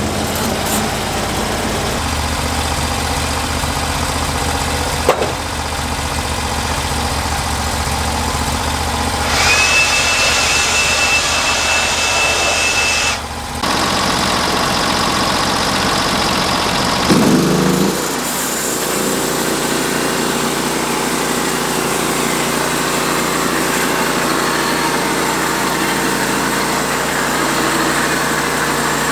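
Sawmill engine running steadily. A high whine over a hiss comes in for about four seconds partway through, and around 18 seconds in the engine note glides and settles into a lower, steadier hum.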